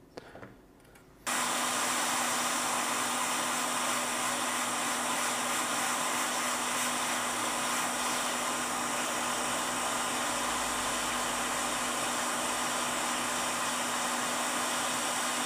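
Hot air rework station blowing a steady stream of hot air onto a logic-board chip to desolder it (the SMC being removed). It switches on abruptly about a second in, an even rush of air with a steady low hum beneath it.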